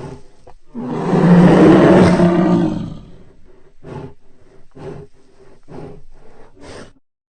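Designed creature sound effect for the fictional hybrid dinosaur Chimerasaurus Rex. One loud roar lasts about two seconds, followed by about four short, quieter growls roughly a second apart.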